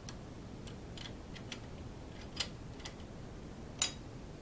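A few scattered, sharp metal clicks and clinks, the loudest near the end, from a tool being fitted to and working the hold-down bolt of a milling machine vise.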